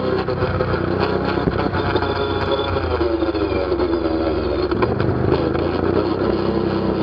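ATV engine running under way, its pitch easing down through the middle as the revs drop, with scattered knocks and rattles.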